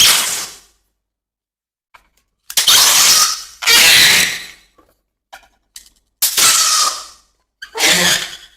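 Balloons popping one after another: four sharp bangs, each trailing off in a short noisy tail, with a few faint clicks in the silent gaps between them.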